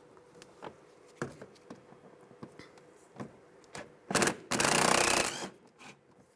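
Cordless driver with a T20 socket on an extension, run for a short burst and then for about a second to back out a fender-liner screw. Small clicks and handling knocks of the screw and plastic liner come before and after.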